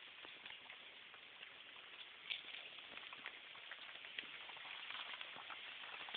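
Steady rain falling, an even hiss with many separate taps of drops landing on nearby surfaces; one louder tap a little over two seconds in.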